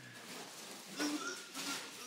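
A small child making short, funny vocal noises, twice: about a second in and again near the end.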